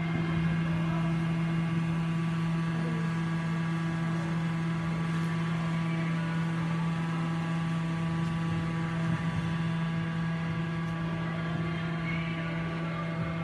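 A steady machine hum with a strong low tone and many evenly spaced higher overtones, unchanging throughout.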